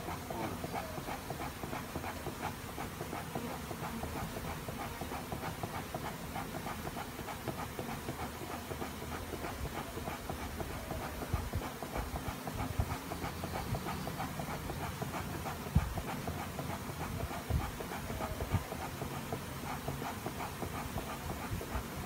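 Steady buzz of a large mass of disturbed honey bees flying around an opened wall hive, with a few dull knocks in the second half.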